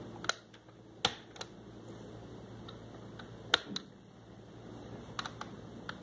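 Plastic keys of a children's toy learning laptop being pressed one at a time: irregular sharp clicks, about eight of them, with a pause of about two seconds in the middle.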